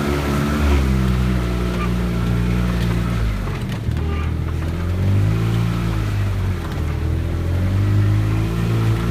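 Engine of an Arctic Cat running under way, its pitch rising and falling as the throttle is worked. It drops about three and a half seconds in, climbs again around five seconds, dips briefly, and rises once more near the end.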